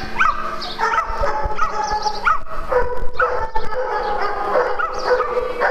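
A pack of dogs and puppies yipping, barking and whining at once while they play-fight, with many short calls that rise and fall in pitch, overlapping one another, and a few drawn-out whines.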